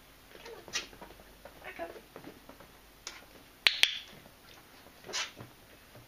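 Soft scuffs and rustles of a Schipperke shifting on a Wii balance board and taking a treat from a hand. Two sharp clicks in quick succession a little past halfway are the loudest sounds.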